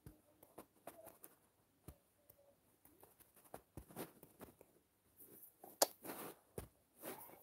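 Faint scattered taps and rubbing of fingers or a stylus on a phone's touchscreen while brush strokes are drawn, with a sharper click about six seconds in.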